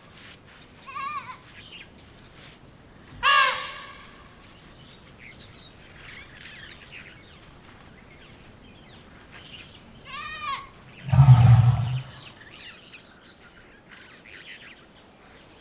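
Elephants trumpeting in short, high, arching calls, three times, with a loud low blast about eleven seconds in and faint chirps between.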